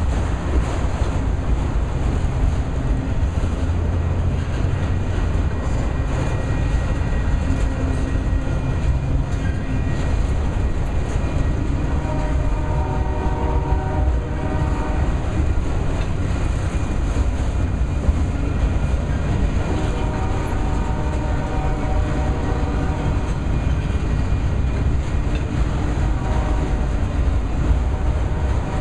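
Freight train of auto rack cars rolling past: a steady, loud rumble of steel wheels on the rails. A pitched whine comes and goes a few times.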